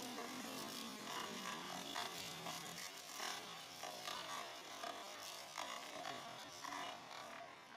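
Electric blender running with chunks of shredded red balls knocking about inside its plastic jar: a buzzing, rattling noise with irregular knocks that fades away near the end.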